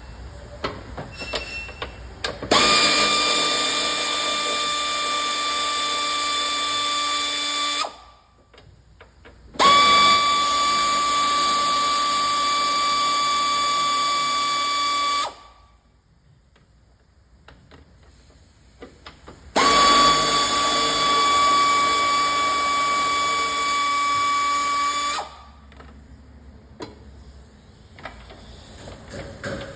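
Cordless power tool running three times for about five to six seconds each, with a steady high whine, as it spins out the bolts of the battery hold-down. Light clinks of metal fall in the pauses between runs.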